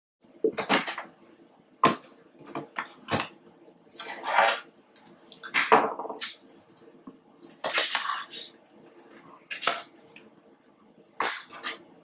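Aluminium bottom cover of a 2008 unibody MacBook being handled and fitted onto the metal case: a series of irregular metallic clacks and taps, with longer scrapes about four and eight seconds in.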